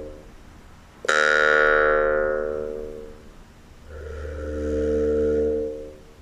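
Jaw harp playing slow, ringing notes. A sharp pluck about a second in rings on with bright overtones that fade over a couple of seconds, and later a softer tone with a low drone swells up and fades away.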